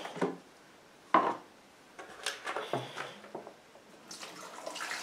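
Hollow plastic clunks and taps as the lid of a backpack sprayer's plastic tank is opened and a large plastic water bottle is handled. About four seconds in, water starts pouring from the bottle into the tank with a steady splashing.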